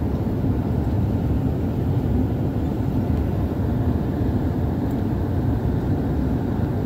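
Steady low engine and airflow noise inside a passenger airliner's cabin as it climbs shortly after takeoff.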